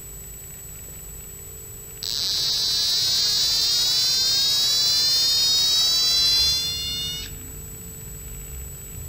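Receiver of a prototype ultrasonic phone-loss alarm sounding: a loud, rapidly pulsing electronic alarm tone starts suddenly about two seconds in and cuts off about five seconds later. The alarm goes off when the receiver stops getting the phone's ultrasonic pulses, meaning the phone has been left behind.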